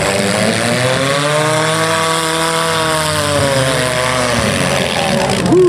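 Stock compact demolition-derby car's engine revving hard, its pitch rising for about two seconds and then falling back. Other derby engines run steadily at a lower pitch underneath.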